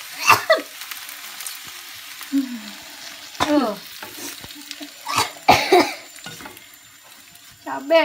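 Napa cabbage sizzling in a frying pan as it is stirred with a wooden spatula. Four short, sharp vocal sounds from a person break in, one near the start and three around the middle, and these are the loudest things heard.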